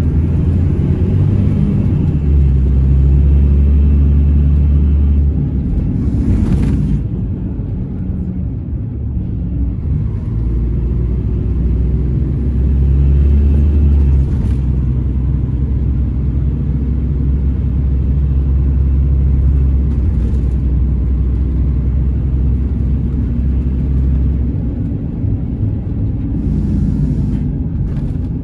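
Scania Irizar Intercentury bus running through town, heard from inside the passenger cabin: a steady low engine and drivetrain drone that eases off and builds again with speed. A few brief hisses cut in now and then.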